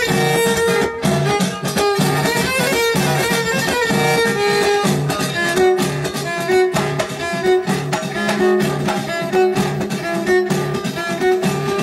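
Instrumental Middle Atlas Amazigh folk music played live: a violin carries a wavering melody over frame drums beating a steady, quick rhythm.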